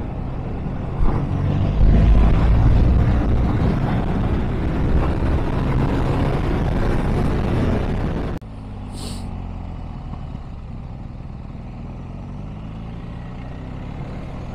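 Motorcycle ridden along a country road: engine and wind rush at speed, loud for the first eight seconds or so, then dropping suddenly to a quieter, steady engine note at lower speed.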